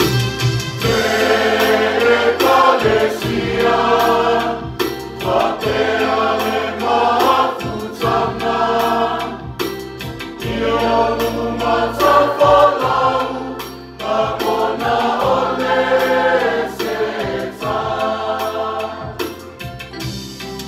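Mixed choir singing a hymn in harmony, in phrases of about two seconds, over electronic keyboard accompaniment holding sustained low notes.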